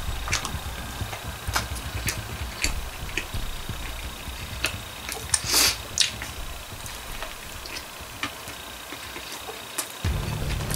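Close-up chewing of a crispy chicken sandwich: a low, uneven mouth rumble with scattered wet clicks, and one short loud hissing noise about halfway through. Background music comes in near the end.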